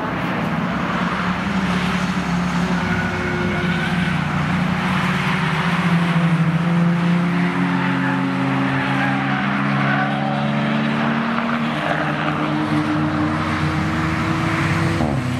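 Several cars passing at speed on a racetrack, their engine notes overlapping and shifting in pitch, one dropping near the end.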